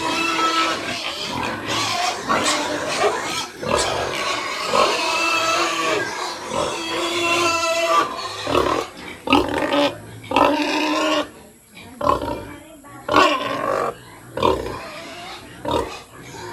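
Weaned piglets squealing and grunting: a dense, continuous clamour of wavering squeals for the first half, then shorter separate squeals and grunts with brief gaps between them.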